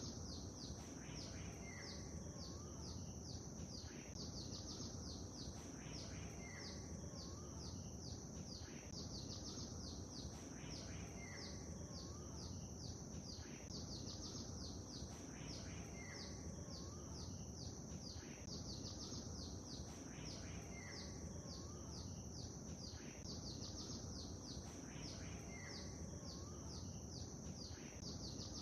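Songbirds chirping and twittering rapidly and continuously, with a few lower whistled notes that repeat about every three and a half seconds, over a steady low background wash of lake ambience.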